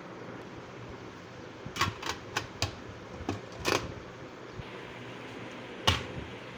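Irregular sharp clicks and taps from stationery items and packaging being handled during an unboxing: a quick cluster of them, then a louder single click near the end, over a steady hiss.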